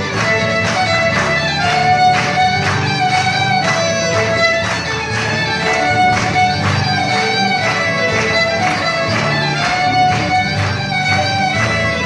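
Two fiddles playing a lively tune together, with two acoustic guitars strumming a steady rhythm underneath.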